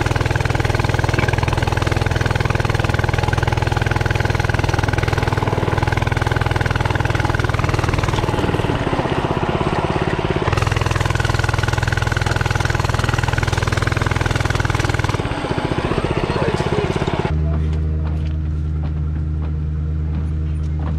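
A Coleman CC100X mini bike's small 99cc single-cylinder engine runs steadily, its note shifting around nine seconds and fifteen seconds in. About seventeen seconds in, the sound turns abruptly duller, to a steady low hum.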